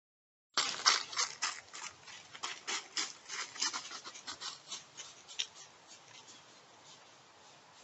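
Irregular crunching, crackling clicks from an animal close to the microphone, starting suddenly about half a second in and thinning out after about five seconds.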